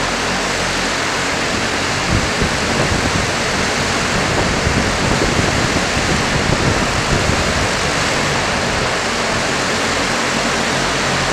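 e-volo Volocopter electric multicopter hovering, its eighteen rotors making a steady, dense whooshing rush. A gusty low rumble joins from about two seconds in.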